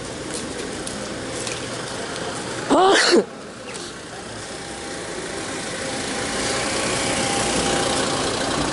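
A car's engine and tyres running close by, growing louder as the car comes up the street and draws alongside. About three seconds in there is a short, loud call with sliding pitch.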